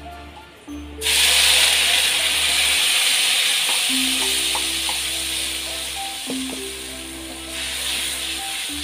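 Blended chili, turmeric and aromatics spice paste poured into hot oil in a wok, sizzling loudly from about a second in, then stirred with a spatula as the sizzle slowly dies down. Background music plays throughout.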